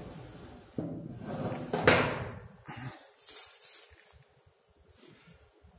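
Rusty steel electrical switchgear cabinet being handled: metal scraping and rattling with one loud clank about two seconds in, as a compartment door on the cabinet is pulled open.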